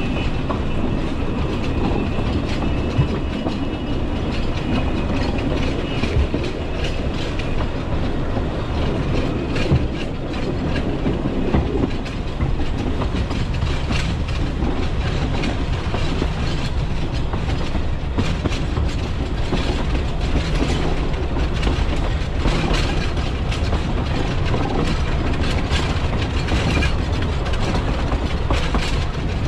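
Narrow-gauge train running along the track: a steady rumble with frequent clicks of the wheels over the rail joints. A thin high tone sounds in the first few seconds and fades out.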